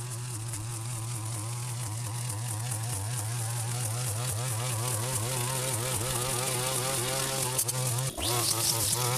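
Strimmer (string trimmer) engine running under load, its buzzing pitch wavering as it cuts, slowly growing louder; a little after 8 s it briefly drops and picks straight back up.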